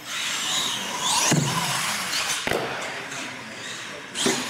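R/C monster truck's motor whining up and down in pitch as the truck is throttled on and off, with a single sharp knock about two and a half seconds in.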